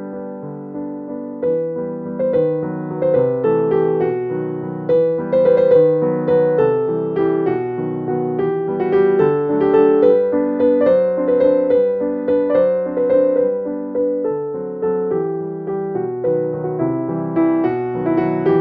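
Background piano music: a gentle melody of single notes over chords, played continuously.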